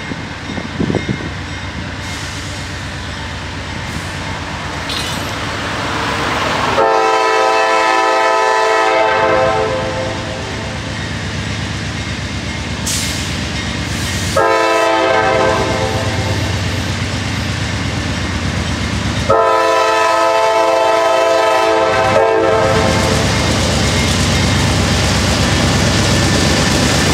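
Air horn on a Norfolk Southern GE diesel locomotive sounding three long blasts, each two to three seconds, as the freight train approaches a grade crossing. Under them runs the low rumble of the engines and cars, which grows louder as the locomotive comes close near the end.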